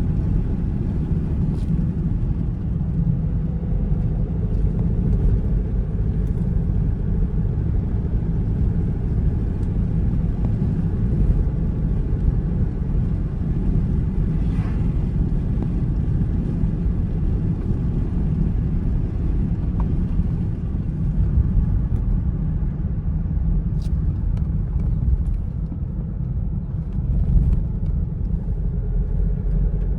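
Car driving at a steady pace: a continuous low rumble of road and engine noise.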